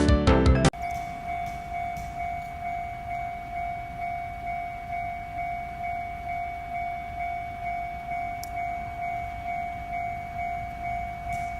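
Japanese railway level-crossing warning bell ringing, an electronic tone repeating at an even pace, with a low rumble underneath.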